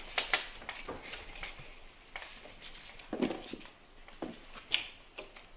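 Kittens scuffling as they play-fight: an irregular run of sharp clicks and scrapes.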